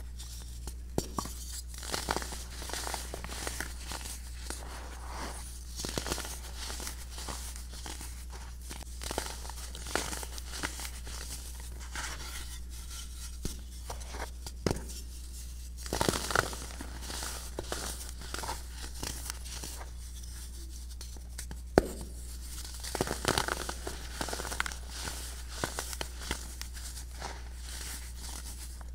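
Blocks of dried baking soda being broken and crushed by hand in a plastic tub: dry, crumbly crunches and sharp cracks in irregular bursts, with powder crumbling between them. The sharpest crack comes about two-thirds of the way in. A steady low hum runs underneath.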